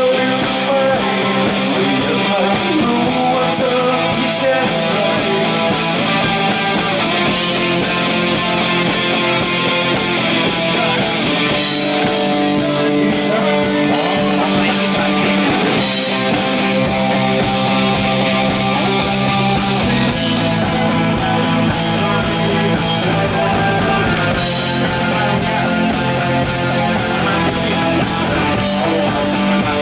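Band playing rock music through a PA sound system, the guitar most prominent, with a steady beat and some singing.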